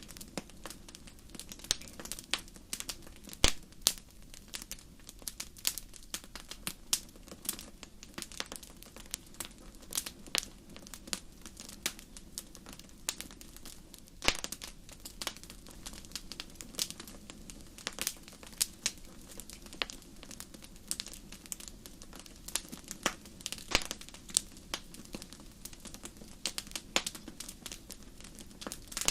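Wood fire crackling: irregular sharp pops and snaps over a low steady hiss and rumble, with a few louder pops.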